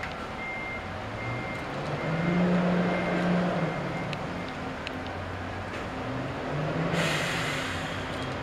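Stationary E501 series electric train humming at the platform, its low machinery drone stepping between two pitches, with a sudden hiss of compressed air being vented about seven seconds in.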